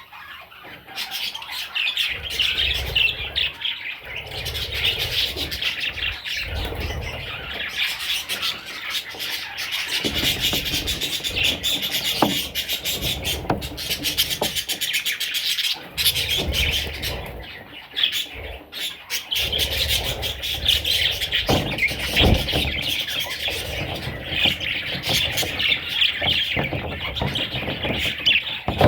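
Budgerigars chattering and warbling without pause, with scattered short clicks.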